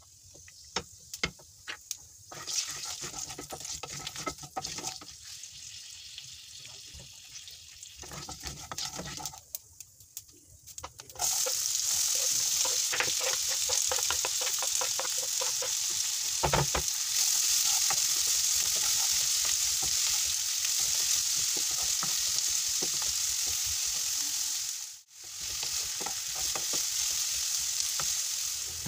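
Whole spices crackling and popping in hot oil in a nonstick kadai. About eleven seconds in, chopped onions go into the oil and a loud, steady sizzle takes over as a wooden spatula stirs them.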